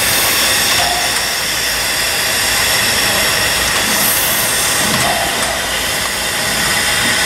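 Steady steam hiss from the C62 steam locomotive standing in steam while it is turned on a turntable.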